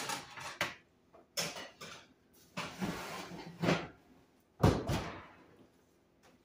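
Electric oven door opening, a metal muffin pan clattering onto the oven rack, and the door shutting: a string of separate knocks and clatters, the loudest thud about four and a half seconds in.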